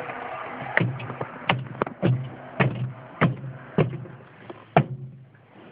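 A series of about eight sharp knocks and thumps, roughly one every half second, as the plastic trim panel of a minivan's sliding door is pushed and tapped into place.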